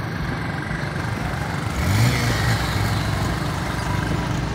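Motor vehicle engines running steadily as traffic moves along a road, including a motorcycle riding close alongside, with the engine noise swelling louder about two seconds in.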